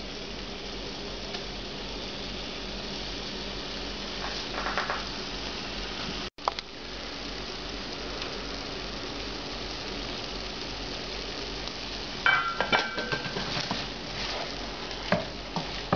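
Tomato sauce and fried chili peppers sizzling and bubbling in a saucepan over medium-high heat as the sauce reduces, a steady hiss. A spoon stirs and scrapes against the pan a few times, most plainly near the end.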